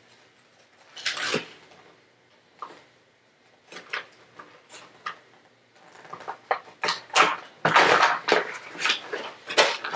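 Clear plastic blister packaging of a toy kit crinkling and cracking as it is handled and pried open: a few scattered crackles at first, growing denser and louder from about six seconds in.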